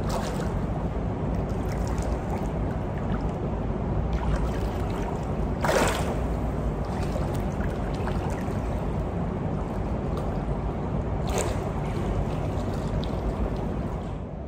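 Pool water sloshing and splashing as a person walks sideways with forward kicks through it, over steady background noise, with louder splashes about six and eleven seconds in.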